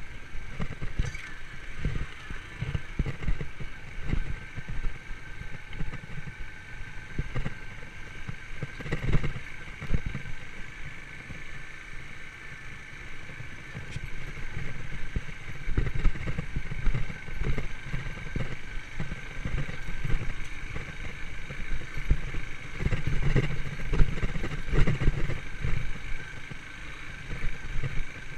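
Yamaha YBR125 motorcycle's single-cylinder four-stroke engine running steadily as it is ridden over a rough forest track, with frequent irregular low thumps and knocks from the bumpy ground.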